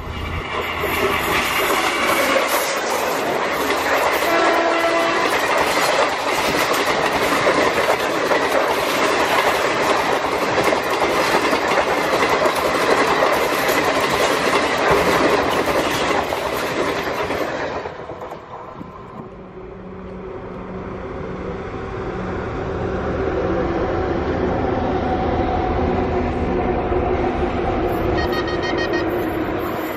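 Electric-hauled express train passing close at speed: a loud rush of coaches with wheels clattering over the rail joints, and a short horn blast about four seconds in. After an abrupt cut about eighteen seconds in, another electric locomotive-hauled train is heard approaching, its running growing steadily louder.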